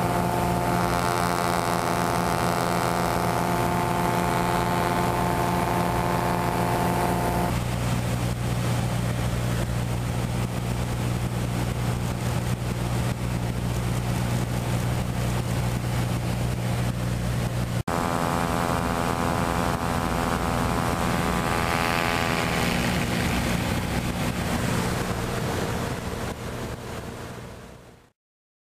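Steady drone of a light aircraft's piston engine and propeller, heard from inside the cabin with the window open and wind rushing past. The engine note falls slightly about three-quarters of the way through, then fades out near the end.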